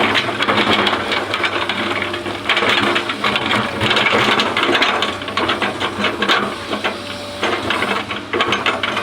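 Excavator running with a continuous, rapid mechanical clatter over a steady engine hum.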